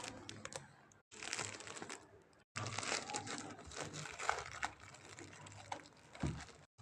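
Packaging being handled and crinkled during an unboxing, a dense crackle of small clicks that stops suddenly twice, about one and two and a half seconds in.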